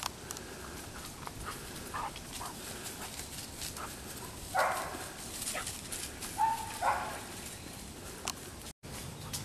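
Wirehaired Pointing Griffon puppies giving short yips and whines a few times, about two, five and seven seconds in, with scattered light clicks between.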